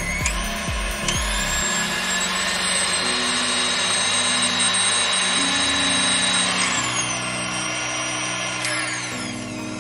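KitchenAid Artisan stand mixer motor running, its whine stepping up in pitch twice near the start as the speed is raised, holding steady, then stepping back down in the last few seconds as the speed is lowered.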